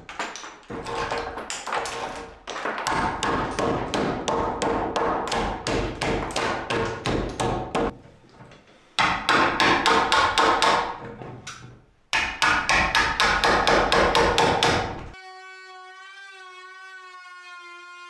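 Hand pull scraper drawn in quick, repeated strokes along a wooden floorboard, shaving off its surface, about two to three scrapes a second with two short pauses. About fifteen seconds in, the scraping stops and soft piano music takes over.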